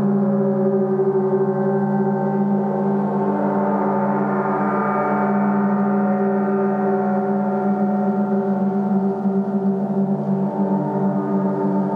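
A portable gong keeps up a dense, steady wash of many ringing overtones, with no single strike standing out. Its higher overtones swell about four seconds in and ease off again.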